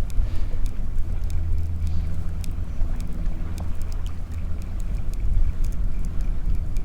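Wind buffeting the microphone over open water, a wavering low rumble, with scattered light ticks.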